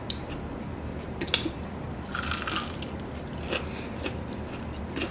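Someone eating: a few wet mouth smacks and sharp clicks, with a brief noisy rustle about two seconds in.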